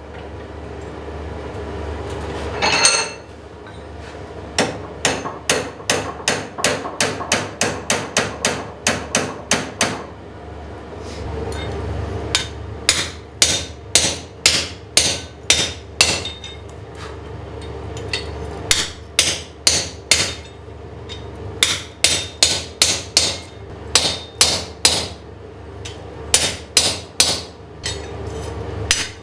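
Hand hammer striking a square steel bar, blows in quick runs of about three a second broken by short pauses, over a steady low hum. The blows are straightening and bending a one-piece forged cross back into shape.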